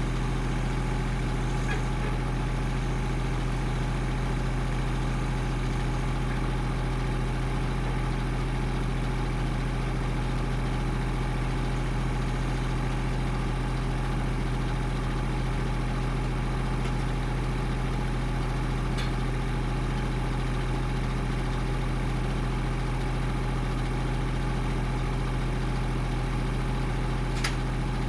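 An engine idling steadily with an even, fast low throb, and a single sharp click near the end.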